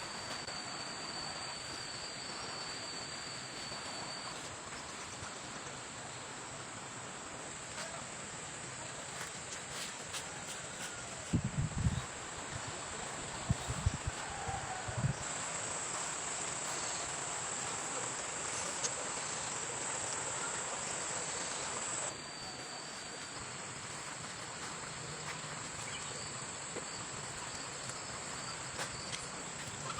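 Insects shrilling in a steady high tone that grows louder for several seconds in the middle, over an even rushing hiss of a stream. A few low thumps come about a third of the way in.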